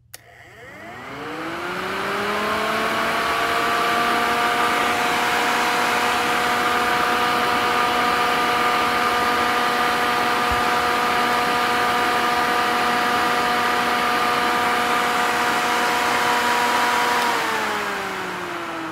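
A click as the fan relay switches on when the heated 185-degree temperature switch closes. A 10-inch 12-volt electric radiator fan then spins up with a rising whine over about three seconds and runs steadily. Near the end it winds down with a falling pitch, shut off by the temperature switch once the fan's airflow has cooled it.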